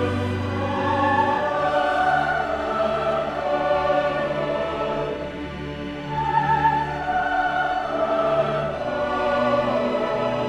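Large choir of about 150 voices singing slow, sustained lines with a string orchestra, with held low string notes underneath. The music eases off briefly about five seconds in, then swells again.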